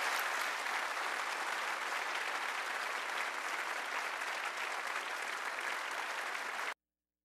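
Audience applauding steadily in a large hall, the clapping cutting off suddenly near the end.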